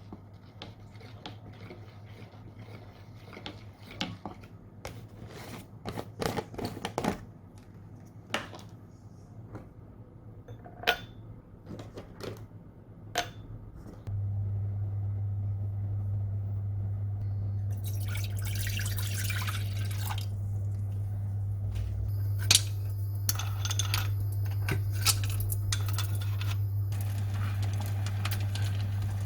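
Kitchen handling sounds: dishes and cutlery clinking and knocking. About halfway a steady low hum starts suddenly and runs on, and later a hissing, crackling sound like food sizzling in a pan joins it.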